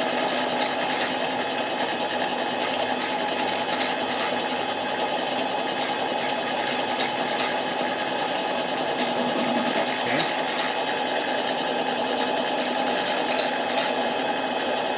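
Harbor Freight 7x10 mini lathe running steadily, its tool cutting a pass on a Husqvarna 372 chainsaw cylinder: an even mechanical hum with a few constant tones.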